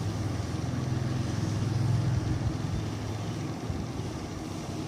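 Steady low background hum with a faint even hiss, swelling slightly in the middle and easing off near the end.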